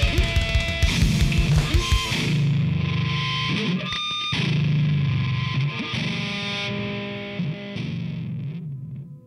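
Rock music led by a distorted electric guitar, with steady drum hits in the first two seconds, then held guitar chords that fade out near the end.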